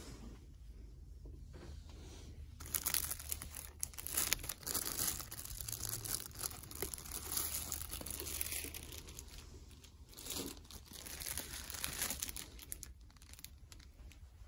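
Plastic product packaging crinkling and rustling close to the microphone, an irregular crackle that starts about three seconds in and eases off near the end.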